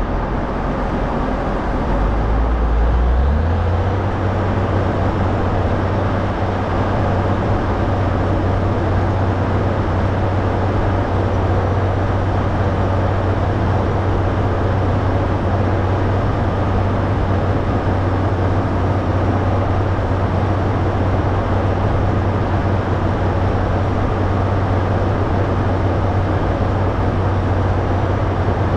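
Caterpillar motor grader's diesel engine running steadily under work. About three seconds in its low note steps up as the engine speeds up, then holds steady.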